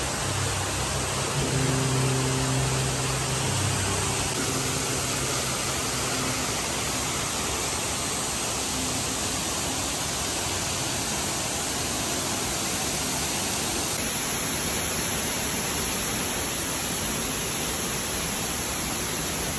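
Steady rushing of waterfalls pouring down an artificial volcano's rock face, an even noise with no breaks. Faint low tones sound under it in the first few seconds.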